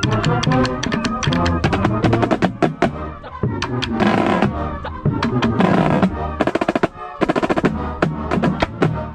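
Marching drumline playing: rapid snare strokes and rolls over deeper drums, with sustained pitched instrument notes underneath.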